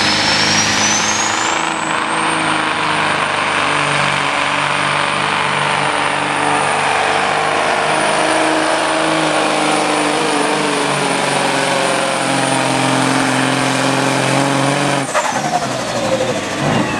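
Pulling semi's turbocharged diesel engine running at full load as it drags the sled, with a high turbo whistle that climbs over the first two seconds, holds steady, then falls away about fifteen seconds in as the pull ends.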